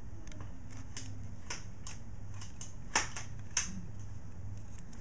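Small clicks and taps of an AR-15 ejection port cover's hinge rod and spring being worked into the upper receiver's hinge lugs, with a sharper click about three seconds in and another just after. A low steady hum runs underneath.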